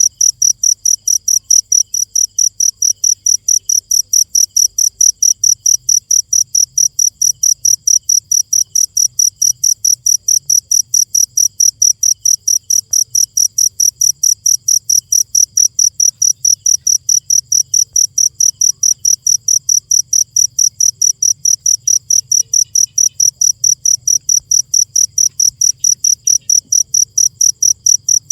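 Insect chirping steadily at night: short, loud, high-pitched chirps repeating evenly, about three or four a second.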